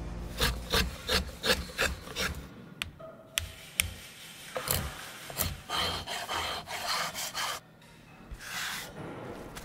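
Hand tools working a wooden shotgun stock: a quick run of rasping strokes, about three a second, then a few sharp taps of a mallet on a chisel about three seconds in, then longer scraping strokes and a last short rasp.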